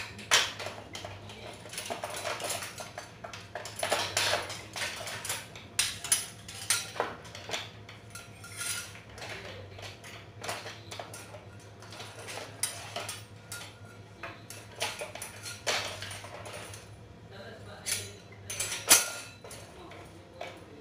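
Metal kitchen utensils clinking and clanking against each other on a hanging utensil rail as they are handled, in irregular sharp knocks with brief metallic ringing, over a steady low hum.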